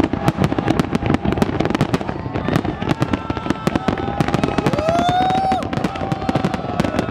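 Fireworks display: a dense, fast barrage of shell bursts and crackle, many bangs a second. A held tone rises and then holds for about a second near the middle.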